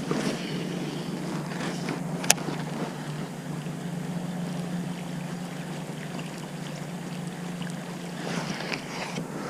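A boat's motor running with a steady low hum, and one sharp click about two seconds in.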